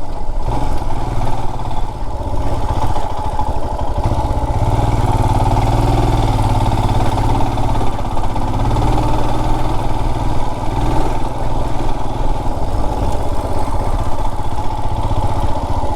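Motorcycle engine running at low, fairly steady revs while being ridden slowly, its pitch wavering a little around the middle.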